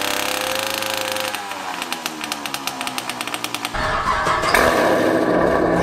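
Small two-stroke bicycle kit engine running, easing off after about a second into a quieter, pulsing idle. About four seconds in, a louder, deeper car exhaust sound cuts in.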